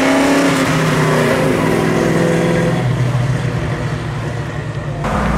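AMC Javelin's engine driving past, its note falling in pitch as it goes by, then holding steady as the car pulls away. The sound changes abruptly near the end.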